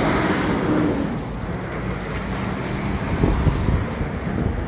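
Road traffic running, a little louder in the first second, with wind rumbling on the phone's microphone.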